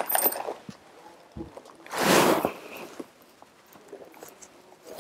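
Rustling and brushing as earrings are handled and put on, with a few small clicks. Three short rustles stand out: one at the start, a louder one about two seconds in, and one at the end.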